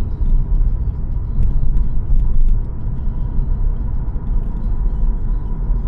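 Car driving along, with a steady low rumble of road and engine noise heard from inside the cabin.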